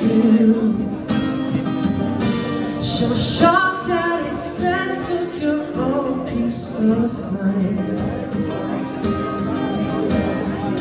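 Live acoustic guitar strumming accompanying a sung melody in an indie song.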